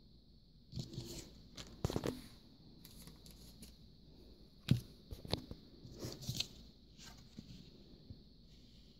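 Cardstock die-cut pieces being handled: paper rustling in short bursts with a few sharp taps, the sharpest one about halfway through.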